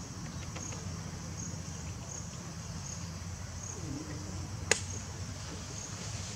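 An insect chirping high and evenly, about every three-quarters of a second, over a steady low rumble. One sharp click stands out about three-quarters of the way through.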